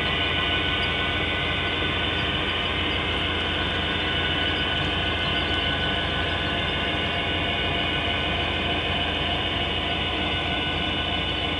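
HO scale model freight train, a string of hopper cars, rolling past on the track with a steady whir of wheels on rails.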